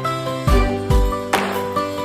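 Background music: held instrumental notes over a steady beat with a low thump every half second or so.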